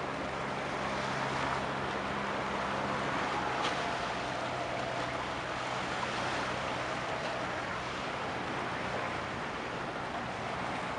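Low steady hum from a passing general cargo ship's engine over a wash of wind and water noise. The hum weakens about three and a half seconds in, where a single short click is heard.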